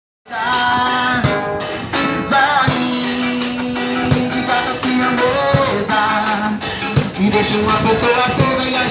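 Band music starting up: a drum kit beat with a strong hit about every second and a half under a wavering lead melody, ahead of the sung verse.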